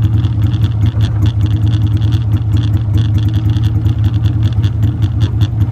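Boat's Gator-Tail mud motor running steadily at idle, a loud even low hum with a fast fine rattle over it.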